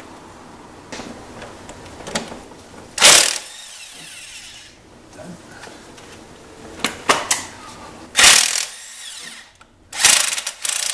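Power ratchet with a 17 mm deep socket running in three short bursts, about 3 s, 8 s and 10 s in, with a few clicks between: loosening the engine-mount bracket bolts.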